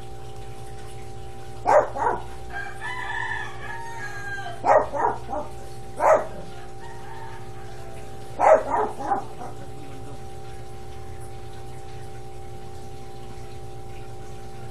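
A rooster crowing once, about three seconds in, among several short bursts of loud, quick animal calls.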